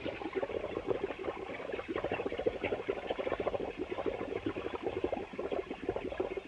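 Rapid, irregular crackling sound effect from an early sound cartoon, many small clicks a second with no music under it.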